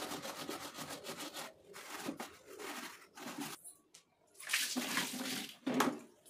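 A soapy scrubber rubbed fast and rhythmically over the plastic body of a mixer grinder, around the jar coupler. In the last two seconds, water tipped from a plastic bowl splashes over the grinder and onto the floor.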